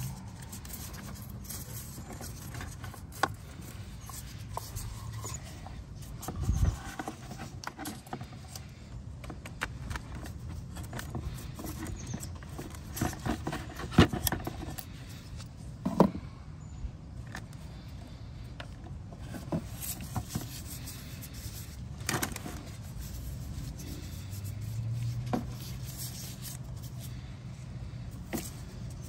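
Handling sounds of gloved hands fitting rubber O-rings onto plastic oil-filter parts: soft scraping and rubbing with scattered sharp plastic clicks, two louder ones near the middle, over a steady low hum.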